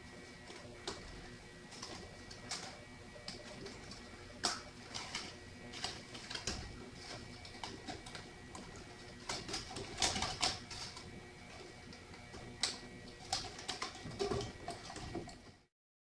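Scattered light clicks and knocks of plastic and sheet metal: a garage door opener's multi-pin wiring plug being pushed home and its black circuit-board cover being fitted back onto the metal housing. The sound cuts off abruptly near the end.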